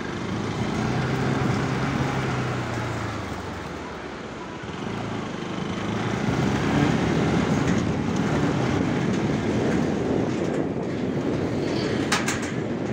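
Motorcycle rolling slowly over a suspension bridge's metal deck slats. The slats rattle and clatter under the tyres over the low run of the engine, and a couple of sharp clicks come near the end.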